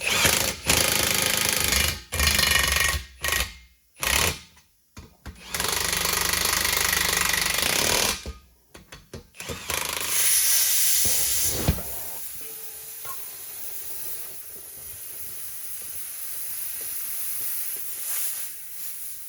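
Pneumatic impact wrench on the bolts of a two-piece Humvee wheel, run in several loud bursts with short pauses between them. About twelve seconds in it gives way to a quieter, steady hiss of compressed air.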